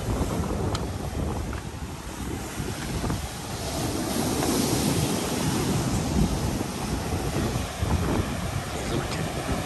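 Ocean surf breaking and washing over lava rocks, with wind buffeting the microphone; a wave surges in loudest around the middle.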